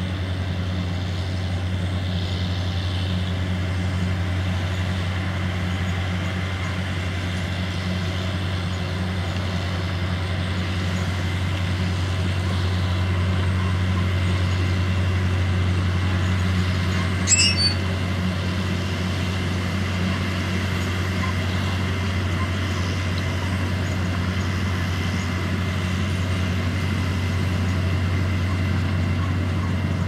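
Self-propelled Dewulf RA 3060 potato harvester at work, its diesel engine running steadily under load with a constant low drone. A brief sharp high sound cuts in about seventeen seconds in.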